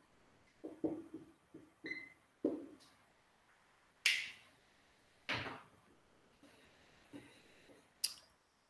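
Dry-erase marker writing on a whiteboard: a run of short scratchy strokes with a brief squeak near two seconds in, followed by three sharp knocks later on.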